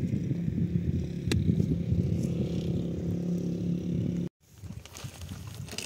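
A vehicle engine idling steadily, with a sharp click just after a second in. The engine sound cuts off abruptly about four seconds in, leaving only faint scattered noises.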